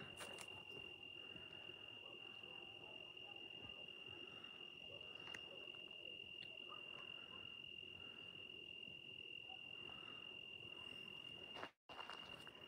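Faint, steady trill of a cricket: one unbroken high note, cutting out for a moment near the end.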